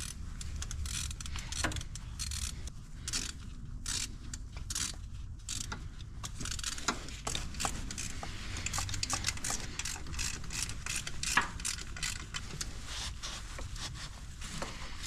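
Hand ratchet wrench clicking in irregular runs of rapid clicks as the alternator's mounting bolts are driven in.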